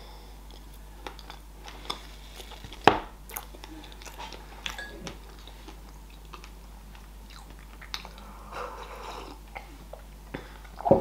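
A person biting and chewing a chocolate-caramel tartlet close to the microphone: scattered crunches and wet mouth clicks, the sharpest about three seconds in.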